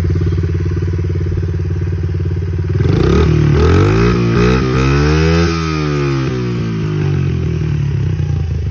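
2014 Honda CRF50F's 49 cc single-cylinder four-stroke engine idling, then revved about three seconds in: the pitch climbs for a couple of seconds and falls back to idle.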